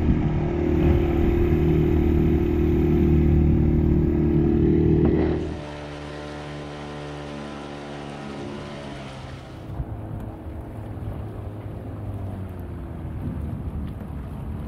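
Small outboard motor running steadily at speed. About five and a half seconds in it suddenly drops quieter with a slightly different pitch, and from about ten seconds in it is fainter under a wash of water and wind noise.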